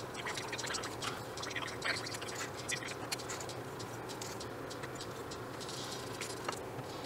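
Edge beveler scraping along the edge of a leather sheath, then the leather piece handled and set down on a cutting mat: scattered light scratches and ticks.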